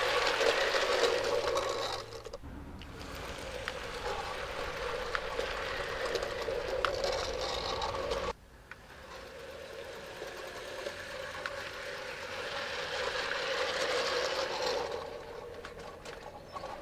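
Bachmann G-scale Climax model locomotive's electric motor and gearing whirring as it hauls a loaded train past on the garden railway track, with light clicks from the wheels on the rails. It is loudest as the train passes close, drops away suddenly twice, swells again and then fades near the end.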